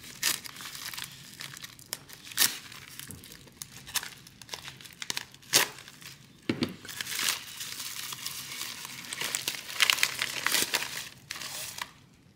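Plastic poly mailer being cut and torn open by hand, crinkling and rustling as it is pulled apart and the contents are drawn out, with a few sharp crackles along the way. It goes quieter near the end.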